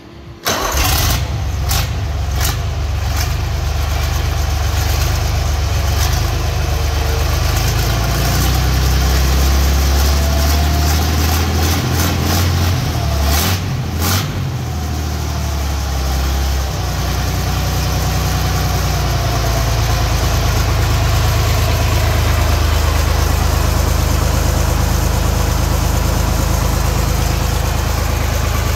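Deutz F6L913 air-cooled six-cylinder diesel engine, running on a stand outside any vehicle, fires up about half a second in and keeps running at a steady idle. Its speed shifts briefly near the middle, with a few clicks.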